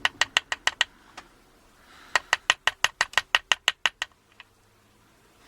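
Two runs of quick sharp clicks, about six a second, from a gutted American A1100 padlock being tapped to knock its pins out of their chambers. The first run stops about a second in, and the second lasts about two seconds.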